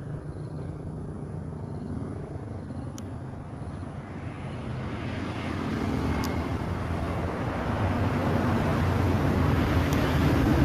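Steady low motor rumble with a hiss, like distant vehicle engine noise, growing gradually louder from about halfway through.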